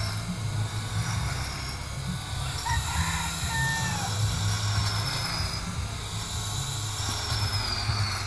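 Cordless electric grass trimmer, a Makita replica, running as its spinning head cuts through grass and weeds: a steady high whine over an uneven low rumble.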